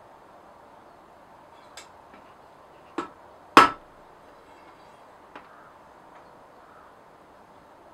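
Two sharp hammer blows on a thin mild-steel rod at the anvil, about half a second apart, the second the louder, with a couple of faint metal clinks before and after.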